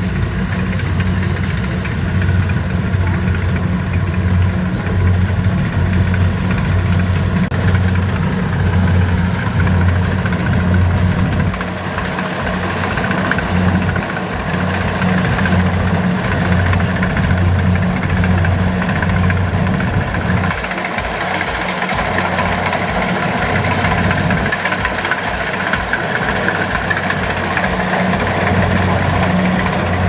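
Kubota DC70 rice combine harvester running steadily as it cuts and threshes rice; its diesel engine gives a loud, even, pulsing drone. The low part of the drone drops away briefly about twelve seconds in and again a little past the middle.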